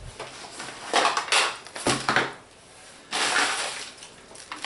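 Packed items being handled and set down on a wooden table: rustling of fabric and plastic in a few bursts, with one knock about two seconds in.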